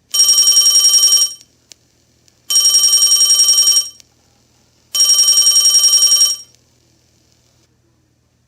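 A telephone-bell ringtone sound effect played back by a BY8001-16P MP3 player module. It rings three times, each ring about a second long and made of a fast, even trill of high tones, with the rings about two and a half seconds apart.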